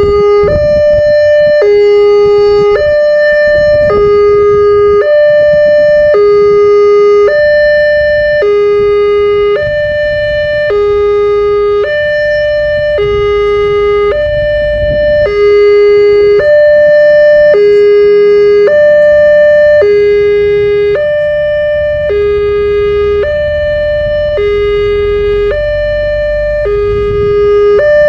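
Railway level-crossing warning alarm sounding an electronic two-tone siren, a higher and a lower note alternating about every three-quarters of a second, the signal that a train is approaching the crossing. A low rumble runs underneath and grows louder near the end.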